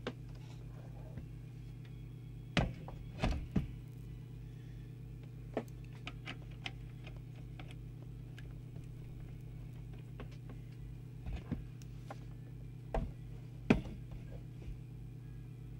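An 11-pin power cable plug being handled and fitted to the chassis of a Heathkit HW12A valve transceiver, giving scattered clicks and knocks, the loudest near the end, over a steady low hum.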